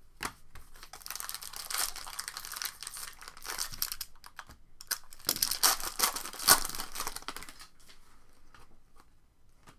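Trading cards and their packaging being handled: a busy run of rustling and small clicks, with one sharper click about six and a half seconds in, dying away after about eight seconds.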